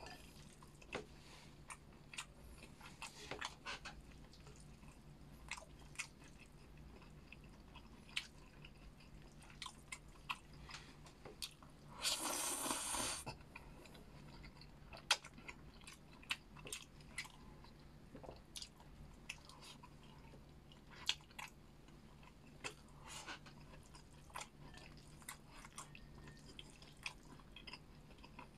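Close-up chewing and biting, with many small wet clicks of a mouth working on food. About twelve seconds in comes a louder noisy rush lasting about a second.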